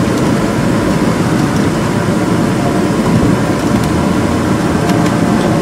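Steady vehicle engine and road noise, loud and even throughout.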